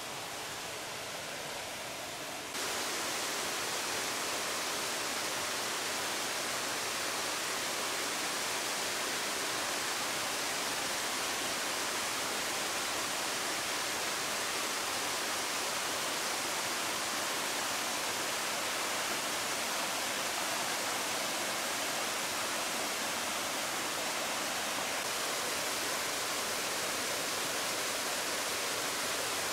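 Steady rushing of small waterfalls pouring into a river pool: a constant, even wash of water noise that steps up in level about two and a half seconds in.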